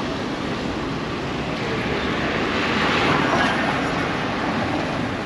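Steady road traffic and engine noise, swelling about three seconds in as a vehicle passes.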